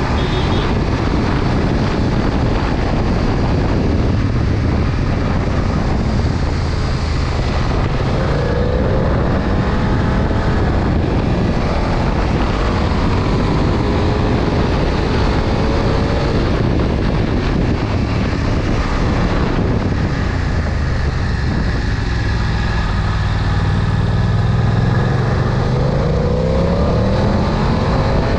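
BMW F900XR's parallel-twin engine running, its note rising and falling, with a long steady climb in pitch over the last few seconds.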